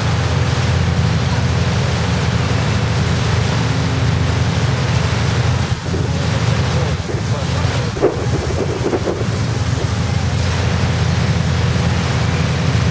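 Steady low drone of a river boat's engine under way, with wind buffeting the microphone. Brief voices break in around the middle.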